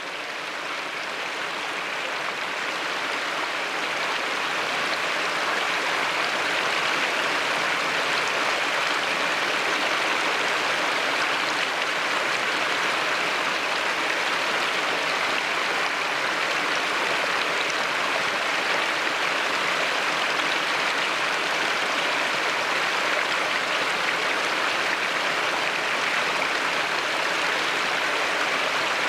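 A low-flow river cascade, water spilling over scattered rock ledges in a three-tier fall with drops of 2 to 5 feet, giving a steady rushing splash. It fades in over the first few seconds, then holds even.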